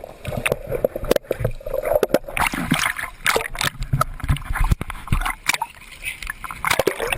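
Sea water splashing and sloshing close to the microphone, with frequent sharp knocks and bumps and a few faint voices.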